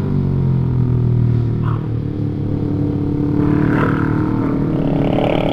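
Motorcycle engine running under way, its note drifting slightly in pitch as the speed changes.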